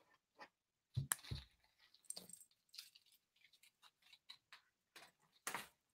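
Faint handling noises: a few short clicks and soft rustles as a black velvet necklace display bust is picked up and moved about, the loudest about a second in and another shortly before the end.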